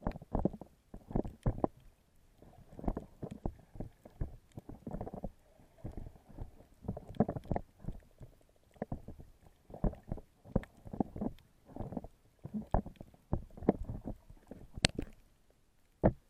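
Underwater action camera's microphone picking up water moving around it as the snorkeler swims: irregular muffled thumps and whooshes, a few each second, with a sharper click near the end.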